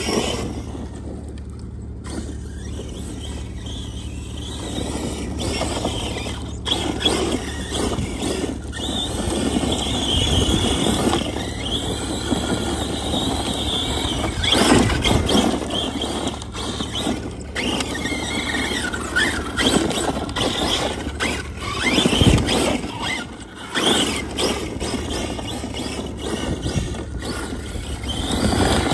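ARRMA Big Rock 6S RC monster truck's brushless motor and drivetrain whining. The pitch rises and falls with throttle as the truck drifts, over the noise of its tyres spraying loose dirt.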